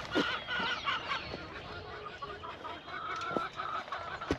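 Laying hens clucking: a steady run of short, even-pitched calls.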